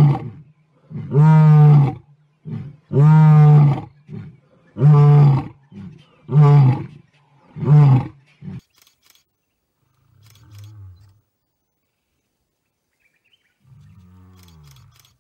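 Male lion roaring in a bout: about five deep calls, one every second and a half or so, each shorter than the last, ending about eight seconds in. Two faint low grunts follow near the end.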